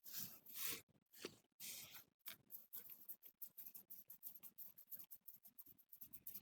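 Fingers massaging and scratching a person's hair and scalp, faint and scratchy. A few longer rubs give way, about two seconds in, to quick, rhythmic scratching strokes, several a second.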